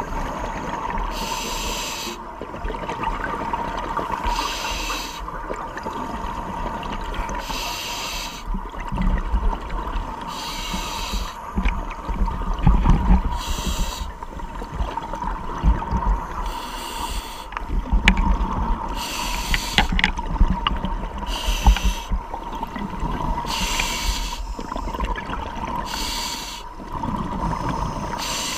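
Underwater scuba breathing through a regulator: bursts of exhaled bubbles rushing and gurgling about every three seconds, with a faint steady tone underneath.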